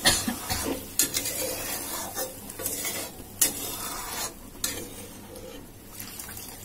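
Hot water poured into a kadai of frying potato curry, sizzling, while a steel spatula stirs and clinks against the pan several times, most sharply at the start and about three and a half seconds in.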